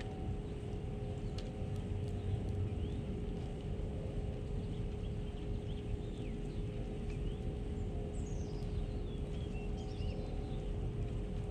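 Small wild birds chirping: a few short chirps in the first few seconds and a quick falling series of high twitters near the end, over a steady low rumble and a constant hum.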